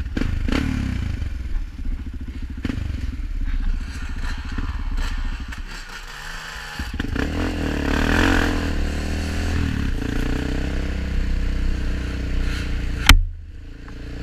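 ATV engine running under throttle while ridden along a trail. It eases off about six seconds in and picks up again about a second later. Near the end there is one sharp bang, after which the engine is briefly quieter.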